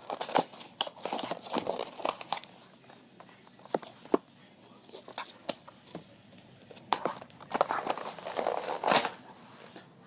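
Handling noise: packaging rustling and crinkling with scattered small clicks, in two spells, one at the start and another about seven seconds in, with quieter handling between.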